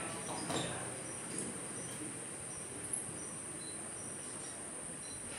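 Steady high-pitched insect chirring in the background, with a few faint short chirps now and then.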